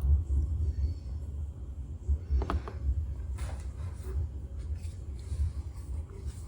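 Small metal clicks and scrapes of a padlock being taken apart by hand, the clearest about two and a half seconds in, over a steady low rumble.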